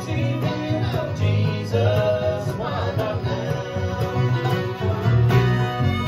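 Live bluegrass band playing: fiddle, acoustic guitars, five-string banjo and upright bass together, with the bass keeping a steady pulse underneath.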